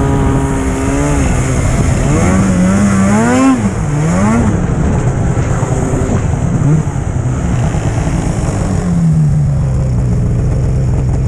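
Snowmobile engine under way: it runs steadily, revs up and down in quick rising and falling sweeps a few seconds in, and then settles to a steady lower note near the end as the sled slows to a stop.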